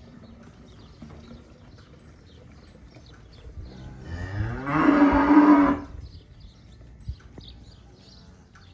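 A cow mooing once, a single call of about two seconds near the middle that starts low and rises in pitch.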